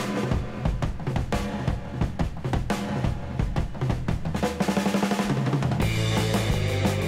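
Outro jingle music led by drums, with rapid drum strikes like a roll; about six seconds in the full band comes in over the beat.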